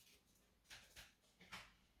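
Faint handling noises: two or three short scrapes or rustles, about a second in and again near a second and a half.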